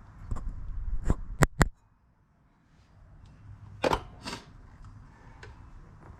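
Handling noises: a low rumble with three sharp clicks in the first two seconds, cutting off abruptly, then two knocks about four seconds in.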